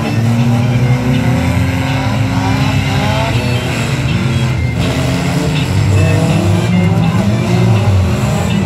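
Several banger racing cars' engines revving hard at once, their pitches rising and falling over one another.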